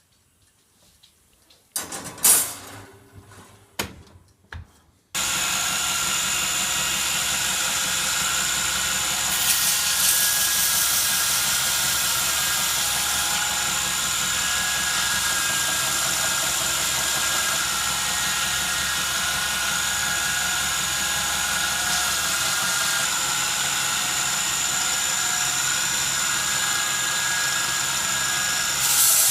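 A few knocks and clicks of handling, then a workshop power tool switches on about five seconds in and runs steadily with a high whine.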